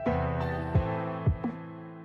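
Instrumental background music: sustained held chords over a soft low beat that falls about twice a second.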